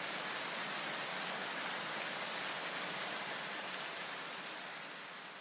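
A steady, even hiss that fades out over the last second or so.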